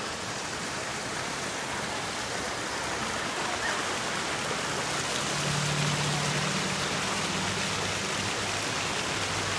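Shallow rocky creek rippling over stones: a steady rush of running water. A low steady hum comes in about halfway through and fades near the end.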